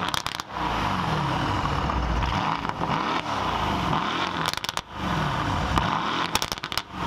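The twin-turbo V8 of a Brabus-tuned Mercedes-AMG C63 is revved repeatedly through its Brabus exhaust, its revs rising and falling several times. Bursts of crackles and pops come off the exhaust about half a second in, midway, and again near the end.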